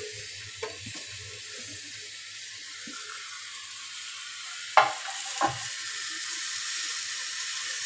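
Chopped potato, cucumber and tomato sizzling in hot oil in an aluminium pressure cooker, a steady hiss. There are two short knocks about five seconds in.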